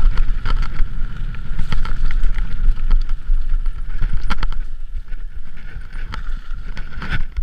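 Mountain bike riding fast down a rough, muddy, stony track: wind rumbling on the camera microphone, tyres rolling over gravel, and the bike rattling and knocking over the bumps.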